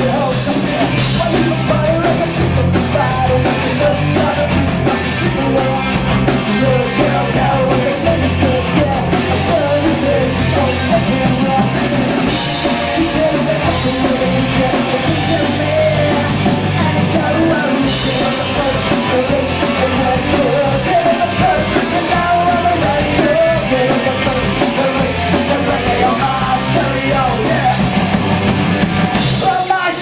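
Punk rock band playing live and loud: electric guitars, bass guitar and drum kit, with a man singing into the microphone. The music breaks off sharply right at the end.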